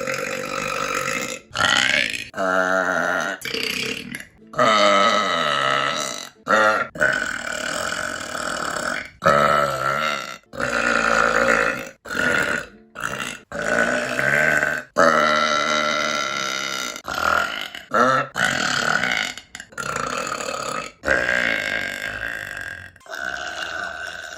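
A woman burping again and again: well over a dozen long belches spliced back to back, each cut off abruptly by the next, some with a wavering pitch.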